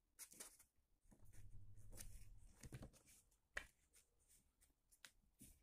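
Near silence with faint rustling and a few soft taps of a sheet of paper being folded and creased by hand.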